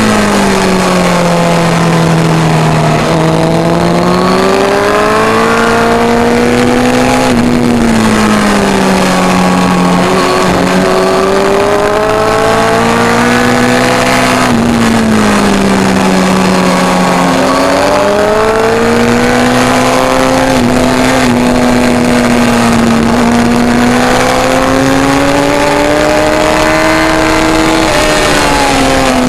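Suzuki GSX-R1000 K1's inline-four engine at track speed, heard from the bike's own onboard camera under heavy wind rush. The engine note falls away several times as the bike slows for corners and climbs again as the throttle opens, with a long rise over the last ten seconds or so.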